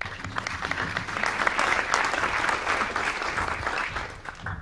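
Audience applauding, building after about a second and dying away near the end.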